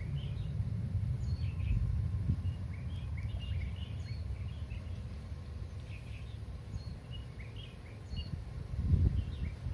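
Small birds chirping in short, scattered calls over a steady low rumble, which swells louder about nine seconds in.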